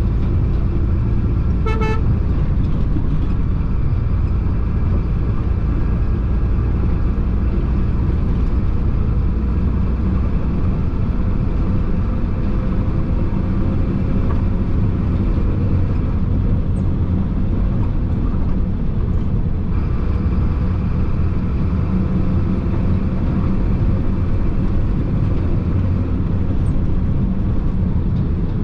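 Chenglong concrete mixer truck's diesel engine and road noise droning steadily inside the cab, with one short horn toot about two seconds in.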